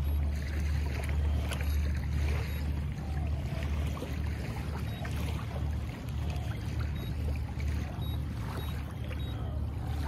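Strong wind buffeting the microphone: a steady low rumble with a faint hiss over it.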